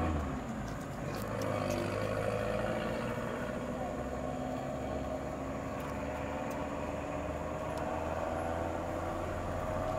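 Vehicle engines running at idle, a steady low hum with a faint engine note that slowly rises near the end.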